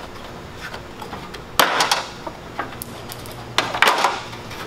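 Hard plastic clicking and knocking as the molded plastic center section of a pickup's front bumper cover is pulled free of its snap clips. The knocks come in two short clusters, the first a little over a second and a half in and the second near the end.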